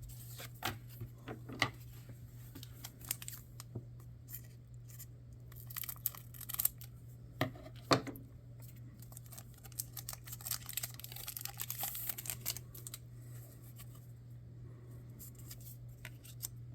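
Trading cards being handled and flipped through one after another: scattered sharp clicks and slaps of card stock, with a denser rustling stretch about ten to thirteen seconds in. A steady low hum runs underneath.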